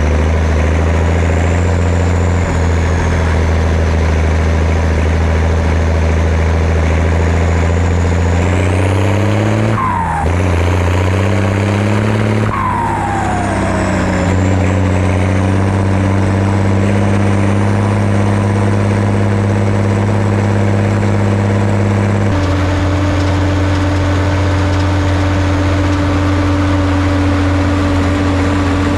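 Zetor 16145 Turbo Intercooler tractor's turbocharged six-cylinder diesel engine running under way, with a faint high turbo whine above it. About a third of the way in the revs climb, then twice drop off with a falling note and pick up again, and near the end the engine settles to a different steady note.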